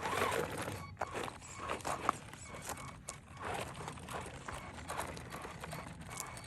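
Irregular crunching, scuffing and sharp clicks on loose limestone gravel and rock.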